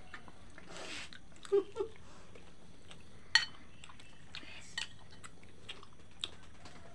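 A metal spoon clinking and scraping on a ceramic plate of food. There is one sharp, ringing clink about three and a half seconds in, and lighter clicks scattered before and after it.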